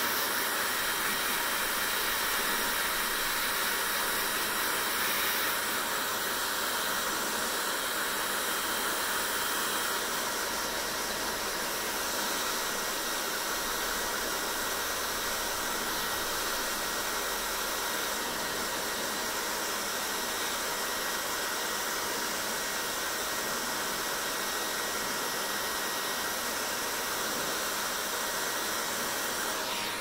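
Handheld electric hair dryer blowing steadily, a constant airy hiss with a faint steady high whine in it.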